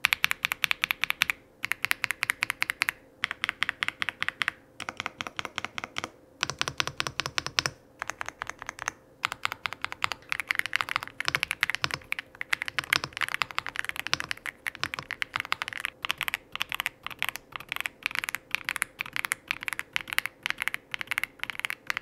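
Aula F99 mechanical keyboard with lubed linear switches being typed on: fast runs of keystrokes broken by short pauses every second or two.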